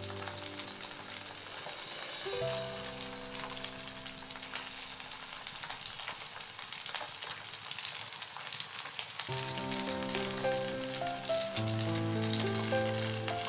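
Whole head-on prawns sizzling as they fry in oil in a non-stick pan, a steady crackling sizzle.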